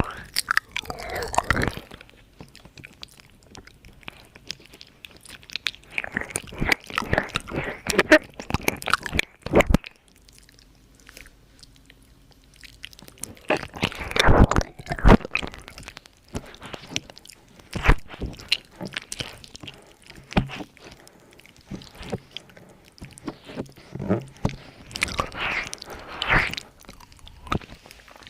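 Close-miked ASMR mouth sounds: wet clicks, smacks and tongue noises coming in irregular clusters, with a few seconds' pause about ten seconds in.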